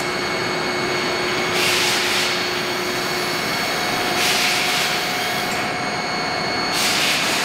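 Steady machine-shop background noise from running machinery, with a few faint steady tones, broken by three short bursts of hiss about two and a half seconds apart.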